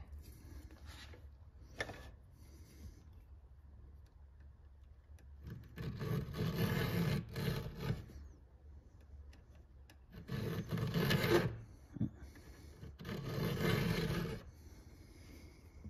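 Flat file rasping across the rakers (depth gauges) of a Husqvarna 372XP chainsaw chain, filing them down so the cutters take a deeper bite. Three spells of filing, each about two seconds, with quiet pauses between.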